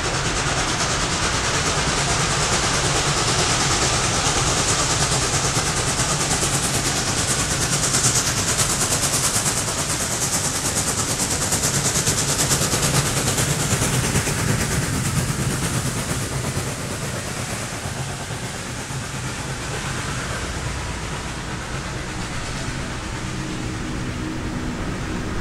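Norfolk & Western J-class 4-8-4 steam locomotive No. 611 passing close by, loudest in the first half; after about fifteen seconds the sound eases as its passenger cars roll past.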